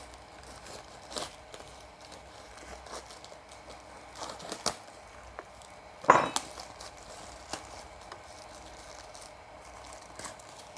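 A tough nylon shipping bag being slit with a metal knife and pulled open by hand: scattered scrapes, ticks and plastic crinkling, with a louder rustle about six seconds in.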